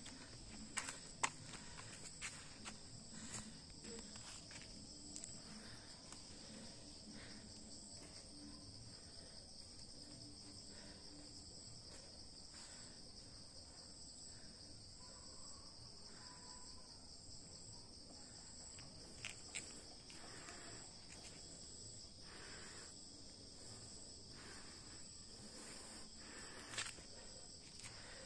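Faint, steady chorus of insects, a continuous high-pitched shrill with a slight pulsing. A few scattered soft clicks fall in the first few seconds and again later.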